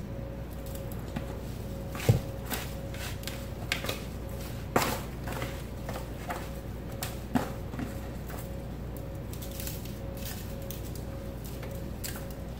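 Hands tossing cubes of seasoned raw skirt steak in a disposable aluminum foil pan: scattered soft squishes and foil crinkles, with a sharp knock about two seconds in, over a faint steady hum.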